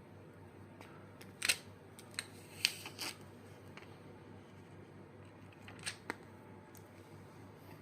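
A few short, sharp clicks and taps from handling phone replacement screens, hard plastic and glass knocking together: two louder ones between about one and a half and three seconds in, two fainter ones about six seconds in.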